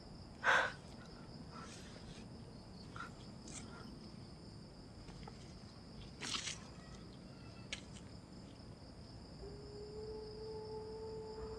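Night insect chorus, crickets trilling steadily and high-pitched. A brief sharp sound cuts in about half a second in, a weaker one around six seconds, and a steady low hum begins about nine seconds in.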